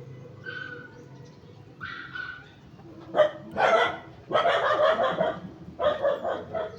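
A dog barking: two fainter high yelps, then a run of loud barks in the second half.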